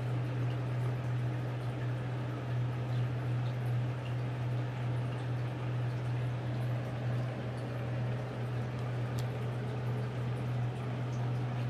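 Small electric fan running: a steady low hum with an even rush of air.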